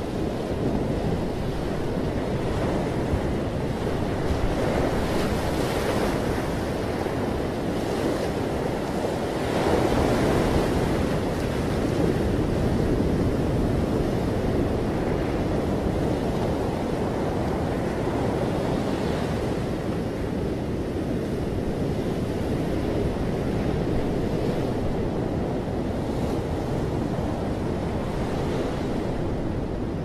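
Ocean surf washing onto a beach: a continuous rush of breaking waves that swells about ten seconds in.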